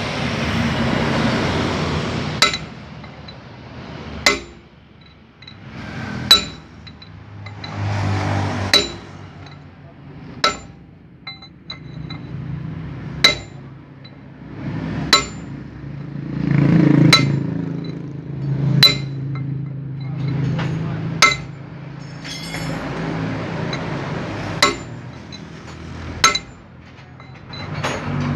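Hammer blows on a steel drift driving a rear wheel bearing race into a Mitsubishi Fuso truck's hub: sharp metallic clinks with a short ring, about a dozen strikes at an uneven pace of one every two seconds or so, over a low background rumble.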